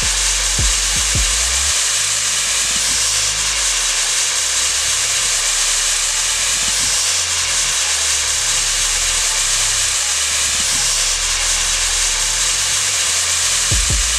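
Giant matchstick head burning, giving a loud, steady fizzing hiss as its match compound burns off in thick smoke.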